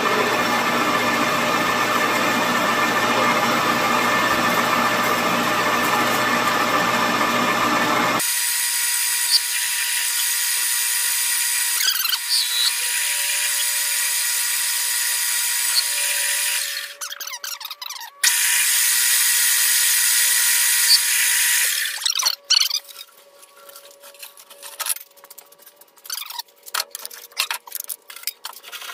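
Grizzly G4003G gunsmith's metal lathe running while the cutting tool turns down metal bar stock: a steady machine whine with a high hiss. The sound changes abruptly about eight seconds in and dips out briefly near seventeen seconds. After about twenty-two seconds the lathe is stopped and scattered clicks and knocks follow.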